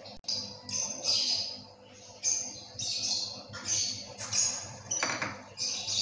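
Potato-and-egg pakoras frying in medium-hot oil in a frying pan: sizzling that comes in irregular hissing bursts of crackle, picking up as a second pakora is lowered into the oil about four seconds in.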